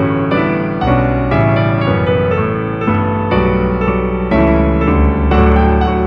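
Background piano music: a slow melody of struck notes, each fading after it is played.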